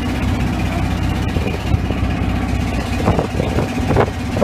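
A wooden river boat's engine running steadily, a low pulsing drone. A few short knocks come near the end.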